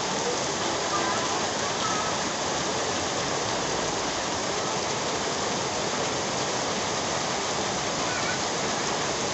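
Heavy rain falling steadily on a paved walkway, mixed with the rush of a fast, swollen river.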